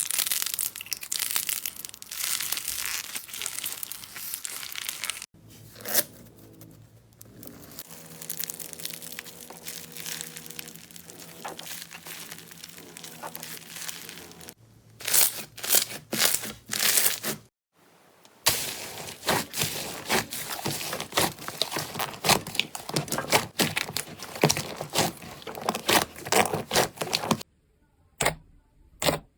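Slime being squeezed and stretched, giving a dense crackling and popping, with stronger single pops in places. The sound comes in several short segments that change abruptly, quieter in the middle, thinning to a few separate clicks near the end.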